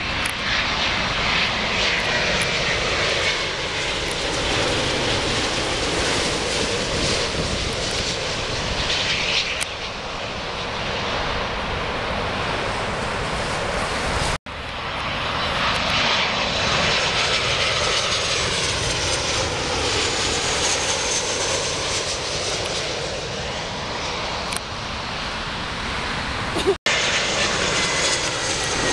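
Jet airliners' engines running as the planes pass low overhead on final approach to land, among them a Boeing 787 and an Airbus A320. A steady whooshing roar whose tone sweeps up and down as each plane passes, broken by two abrupt cuts.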